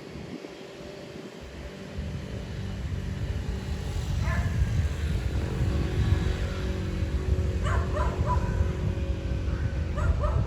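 Wind buffeting the microphone, with a steady engine hum setting in about two seconds in. A dog barks a few times: once about four seconds in, a quick cluster near eight seconds, and again near the end.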